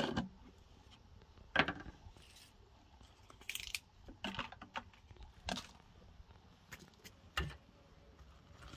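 A large plastic jar being handled. There is a knock at the start as its screw lid comes off, then scattered soft clicks and rustles, about one a second, as bay leaves are dropped into it.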